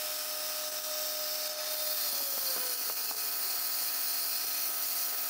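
Spindle of a 2.2 kW CNC router running, with a small engraving cutter milling a relief into a copper-alloy plate: a steady high whine over a hiss of cutting. About two seconds in the whine dips in pitch.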